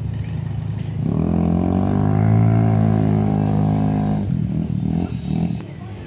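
Quad bike engine running, then revving up about a second in and holding a high, steady note for about three seconds before dropping away.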